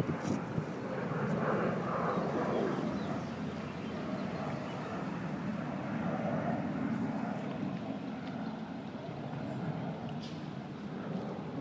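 Steady distant engine noise, swelling and fading slowly.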